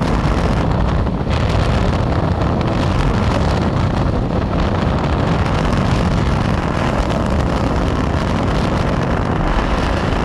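Freight train with a diesel locomotive running past, a steady loud rumble with wind buffeting the microphone.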